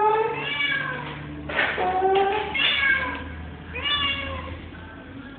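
Domestic cat meowing about four times in a row, each meow a short call that slides in pitch.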